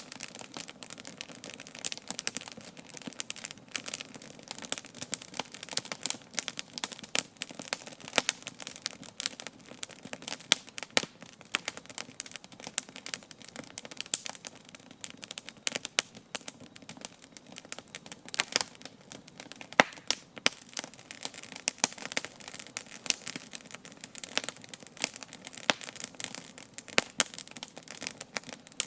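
Wood campfire crackling: a dense, irregular stream of small snaps, with a sharper, louder crack now and then.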